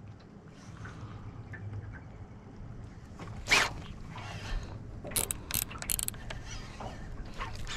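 Fishing reel working while a hooked bass is played: a mechanical cranking sound with a quick run of sharp clicks about five to six seconds in, the reel's drag set loose.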